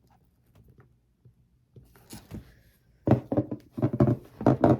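Quiet handling noise for about three seconds, then a quick run of loud knocks and clatter.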